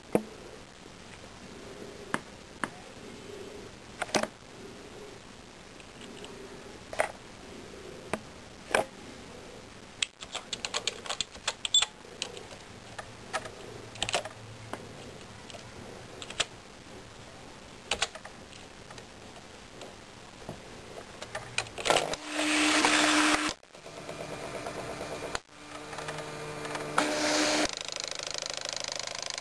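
Smith Corona Graphtext 90 pen-plotter typewriter: single key clicks at irregular intervals, with a quick run of clicks about ten seconds in. About seven seconds before the end its pen-plotter mechanism starts whirring in spurts, stopping and starting.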